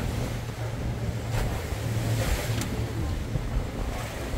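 Tour boat's engine running with a steady low hum, under the rush and splash of the sea against the hull in a rolling swell. Two short clicks come about one and a half and two and a half seconds in.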